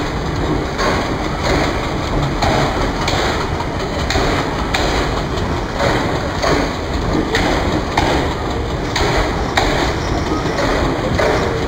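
Passenger train moving, with a rhythmic clatter roughly every two-thirds of a second over a steady rumbling noise.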